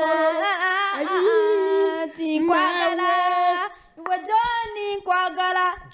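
A woman's voice singing a slow melody in long held notes with a wavering vibrato, in about three phrases with short breaks between them.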